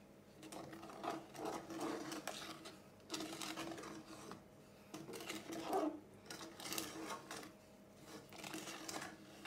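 Wooden spoon stirring and scraping a thick cake batter round a metal saucepan, in repeated strokes with short pauses between them.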